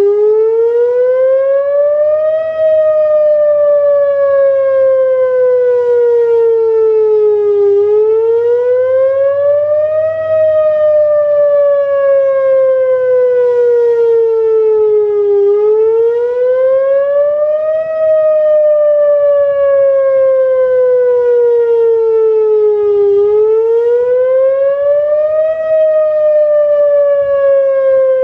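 Whelen WPS-2904 electronic outdoor warning siren sounding its wail tone on a test. The tone rises for about two and a half seconds, then falls for about five, and repeats roughly every eight seconds, loud throughout.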